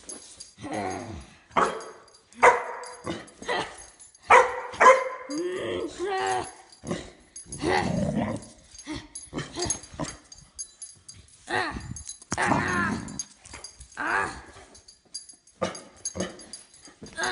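Small dog barking and growling in repeated short bursts while play-fighting with a person's hand.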